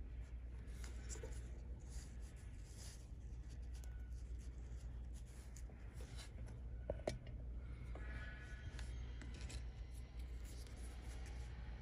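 Faint scratching and rubbing of fingers handling a small carved wooden figure, with scattered light clicks and one sharper click about seven seconds in, over a low steady hum.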